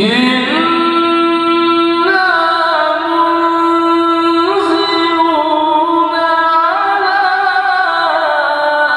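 A man chanting Quran recitation into a handheld microphone in a melodic, drawn-out style. His voice holds each long note and steps to a new pitch every second or two.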